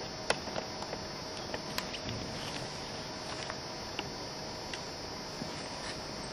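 Steady background hiss with a faint steady hum, broken by scattered short sharp clicks and taps at irregular intervals, the sharpest about a third of a second in.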